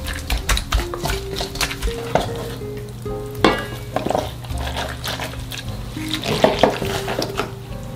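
Hands tossing young radish greens coated in wet chili seasoning in a stainless steel mixing bowl: irregular wet rustles and small clicks as the leaves are turned over.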